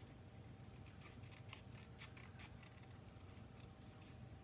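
Faint snipping of small scissors cutting out a stamped image from Whisper White cardstock: a series of quiet, short cuts over a low room hum.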